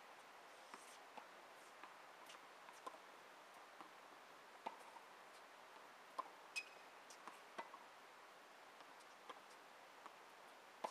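Tennis ball rally on a hard court: faint, sharp pops of racket strikes and ball bounces, one every half second to a second or so, a few louder than the rest.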